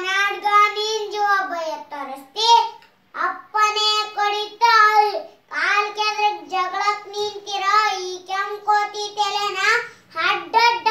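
A young boy singing loudly in a high voice, holding long notes in phrases with short breaks for breath between them.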